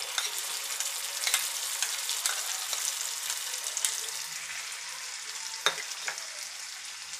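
Ground chilli, ginger and garlic paste sizzling in hot oil in a pan, cooking down so its water boils off. A spatula stirs it, with scattered scraping clicks against the pan and one louder knock about five and a half seconds in.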